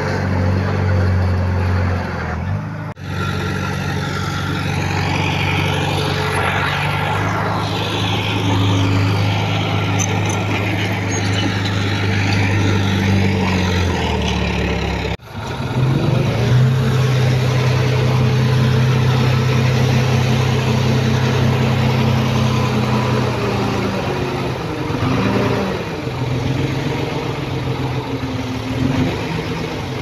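Heavy diesel engines of earthmoving machines running steadily under load. The engine note breaks off and changes abruptly about 3 and 15 seconds in, as the sound cuts from one machine to another.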